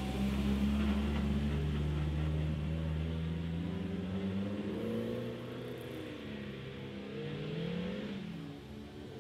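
Rally car's engine accelerating hard past close by, then pulling away down the road, its note fading and changing pitch as it goes.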